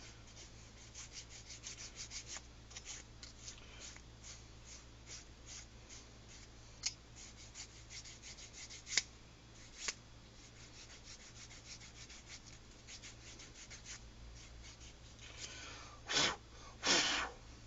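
Nail file rasping along the cut edges of leather in quick short strokes, smoothing off the burrs. The strokes thin out after about ten seconds, and two louder scrapes come near the end.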